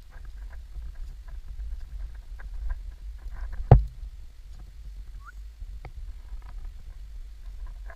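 Footsteps of a hiker walking on a dirt trail, a run of soft even steps over a steady low rumble on the camera's microphone, with one sharp knock a little under four seconds in.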